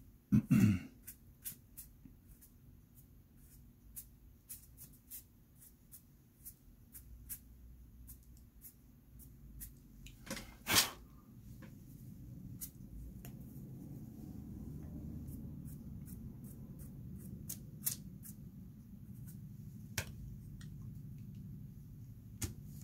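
Drawing materials handled close to the microphone: scattered light clicks and taps, two louder brief rustling bursts about half a second in and about eleven seconds in, and a low steady hum building up in the second half.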